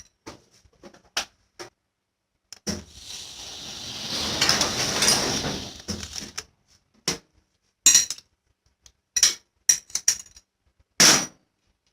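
Metal tools and parts clinking and knocking in separate short strikes, with a rushing noise that swells and fades about three to six seconds in.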